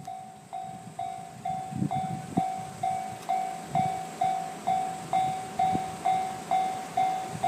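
Japanese level crossing's electronic warning bell ringing, a repeated pitched 'kan-kan' at about two strokes a second, with a faint low rumble of the approaching train underneath.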